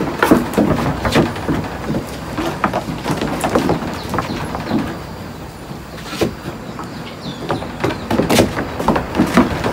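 Goat hooves knocking and scuffing irregularly on wooden plank flooring, with a denser run of knocks near the end.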